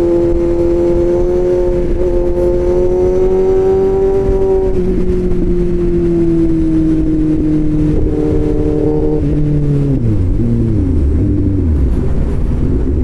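Motorcycle engine running through an aftermarket SC-Project-style exhaust, under way over steady wind noise. The revs climb slightly, ease off about five seconds in, then fall in several steps from about ten seconds as the bike slows and shifts down.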